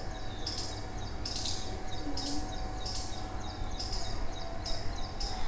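Birds chirping in short, high bursts, irregularly, about one or two a second, over a low steady background rumble.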